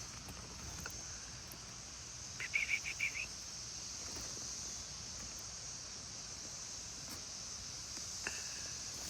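Steady high-pitched insect chorus, with a bird giving a quick run of about six notes about two and a half seconds in and one short call near the end.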